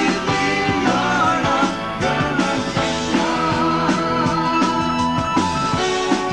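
Live rock band playing a song, with a lead singer's voice over electric guitar and drums.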